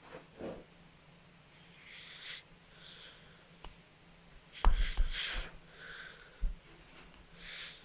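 Handling noise from a smartphone being poked and bumped by a hand: a few light knocks, a louder cluster of thumps about halfway through and one more thump a little later. Short breathy hisses come between them.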